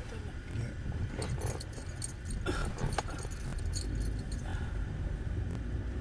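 Inside a moving car: a steady low road and engine rumble, with light metallic jingling and clicks about one to four and a half seconds in and one sharp click about a second and a half in.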